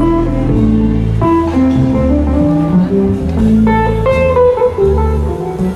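Live jazz band playing through the outdoor festival stage's loudspeakers: a bass line changing every half second or so under a higher melody of short separate notes.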